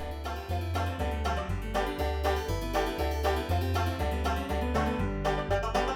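Background music: an upbeat banjo-led bluegrass tune with a bouncing bass line.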